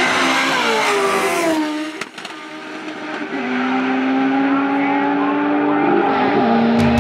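Procharged 408-cubic-inch LS V8 Corvette at wide-open throttle, accelerating past down the drag strip with its engine pitch falling as it goes by. After a brief dip, the race engines are heard farther off as a steady drone that rises slightly, then drops in pitch about six seconds in.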